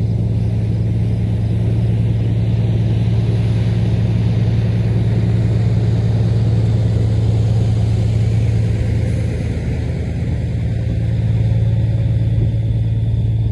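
Semi-truck diesel engine idling steadily with an even, deep drone.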